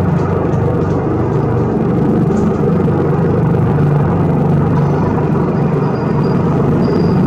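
Coastguard rescue helicopter hovering, a loud steady rotor and engine drone, with a faint high whine joining about five seconds in.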